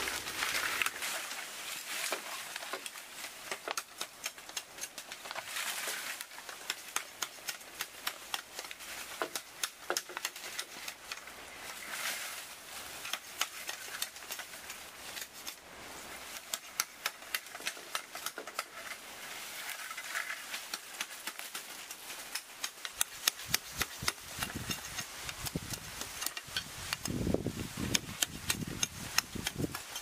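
Dry bamboo leaves and stems rustling and crackling as bamboo poles are dragged and handled, with many small clicks throughout. In the last several seconds come a run of louder knife blows chopping the side branches off a bamboo pole.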